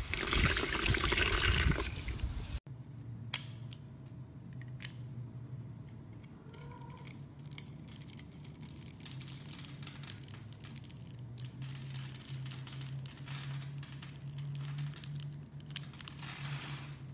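A soapy glitter sponge squeezed in gloved hands makes a loud wet squish for the first two and a half seconds. Then comes a knife slicing through a pink soap bar scored into a grid, with small soap cubes breaking off in a run of crisp crackling clicks.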